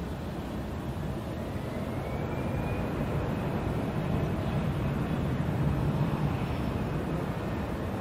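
Jet airliner engines running as a plane taxis, a steady low rumble that swells about five or six seconds in and then eases, with a faint high whine rising slightly between one and three seconds in.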